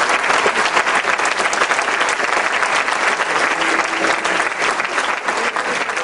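Audience applauding: a dense, steady clapping that eases slightly near the end.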